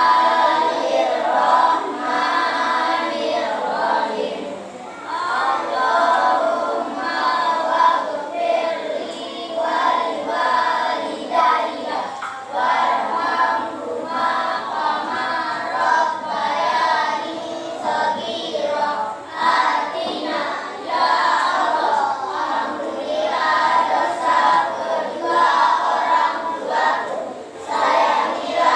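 A group of voices singing together, unaccompanied or nearly so, continuously at a steady level.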